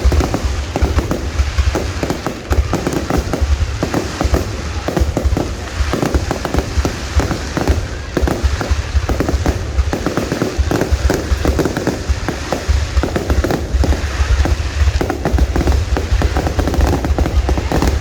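Fireworks display in full barrage: many overlapping bangs and crackles in quick, irregular succession, with heavy low booming underneath.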